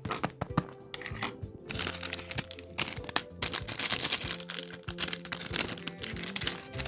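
Paper and tape crinkling and crackling in dense clusters as a handmade paper blind bag is handled, over background music.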